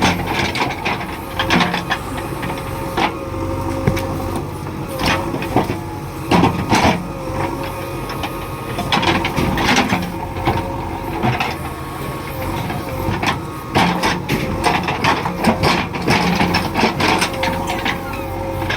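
JCB 3DX backhoe loader at work: its diesel engine runs steadily under a constant whine, with irregular knocks and clatters from the machine working.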